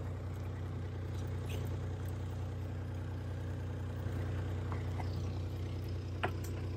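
Engine idling steadily with a low hum, and one sharp knock a little over six seconds in.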